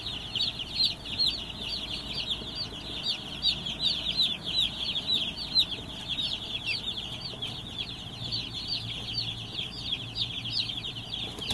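A crowd of jumbo Cornish cross broiler chicks peeping nonstop: many short, high cheeps, each falling in pitch, overlapping one another.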